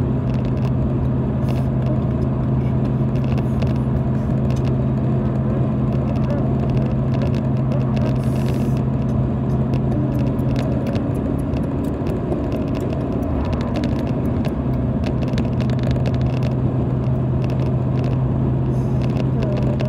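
Steady road noise and low engine drone inside a moving car's cabin, an even rumble with a constant low hum.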